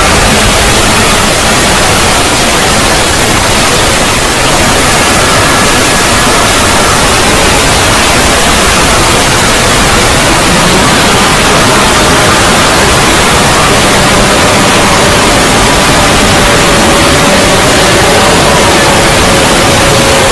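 Very loud, heavily distorted static-like noise from a fan-made 'void' logo sound effect, a steady wall of hiss with faint wavering tones buried in it.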